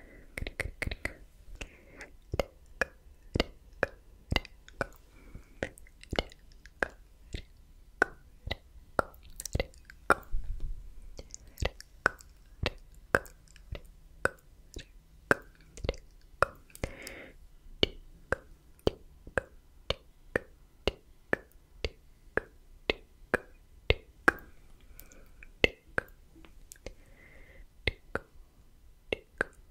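Slow, close-miked ASMR mouth sounds: wet tongue and lip clicks of the "tk" kind, about one or two a second, with a couple of soft breathy whispered sounds in between.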